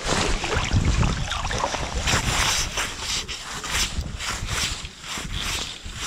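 Wind gusting on the microphone in an uneven low rumble, with small waves lapping on choppy lake water.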